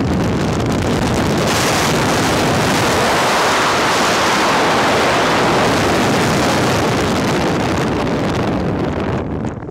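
Wind rushing hard over a helmet-mounted camera's microphone as a parachutist swoops fast under canopy down to skim the sand; the rush dies down just before the end as the canopy slows for landing.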